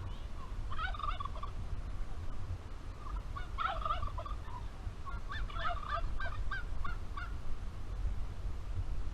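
Turkey gobbling three times, each a rapid, wavering burst of calls, over a steady low rumble.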